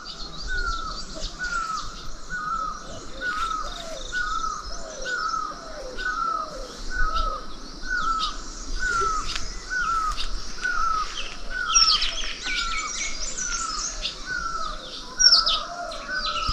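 Birds calling in the morning: one bird repeats a short falling note about three times every two seconds, while other birds chirp higher and faster over it. The chirping gets louder around twelve and fifteen seconds in.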